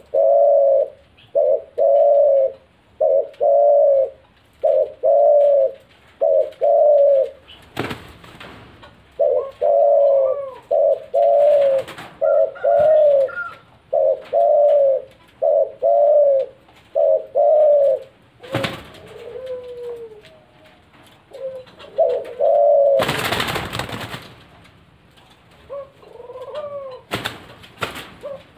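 Spotted doves cooing: repeated phrases of short, low, rounded coos, some notes higher than others. Several loud bursts of noise break in, the longest about a second and a half long, about two-thirds of the way through.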